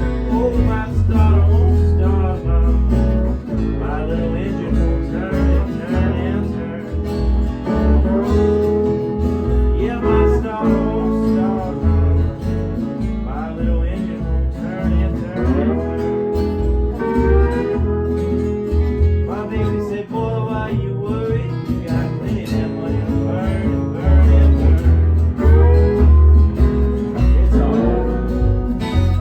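Guitar music: a blues in E, with a low bass line and melody notes that slide up and down in pitch.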